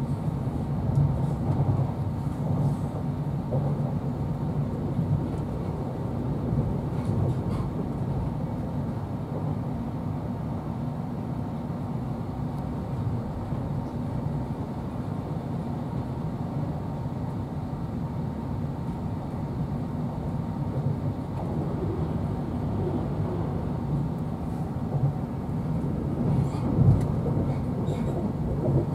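Steady rumble of a High Speed Train's Mark 3 passenger coach running at speed, heard from inside the cabin, with the wheels running on the rails. A few short sharp clicks cut through, the loudest near the end.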